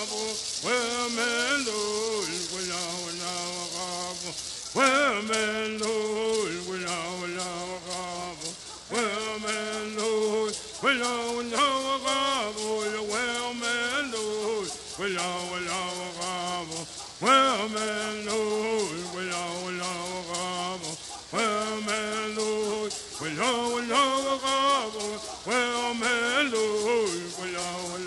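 Southern California bird songs: men's voices chanting short phrases that rise and fall and repeat every few seconds, over the fast, steady shaking of gourd rattles.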